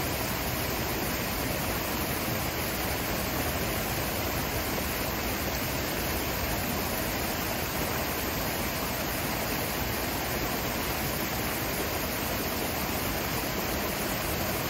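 Water from a small rockwork cascade in a landscaped water feature, running and splashing steadily: an even, unbroken rush with no change throughout.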